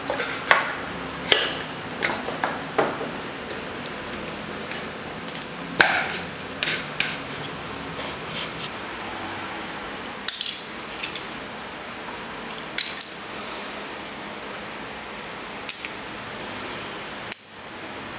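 Scattered clicks, taps and light clatter of parts being handled: first a grey PVC pipe being fitted into its cap, then small metal brackets and hand tools on a tile floor.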